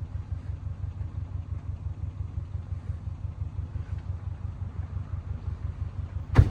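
A car's V8 idling with a steady low rhythmic pulse, with one sharp loud knock near the end.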